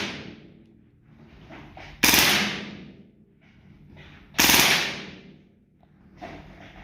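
Airgun shots, two about two and a half seconds apart, each a sharp report with a short fading tail. Fainter short noises fall between them.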